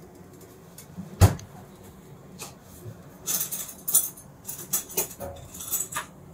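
A single sharp knock about a second in, then a couple of seconds of short, light rustling and clinking: handling noise at a crepe counter.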